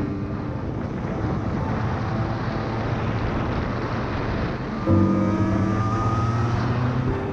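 Single-cylinder two-stroke engine of a 1991 Yamaha TZR125 running under way, mixed with wind and road noise. About five seconds in, a louder layer of steady tones comes in suddenly, and one note rises for a second or so.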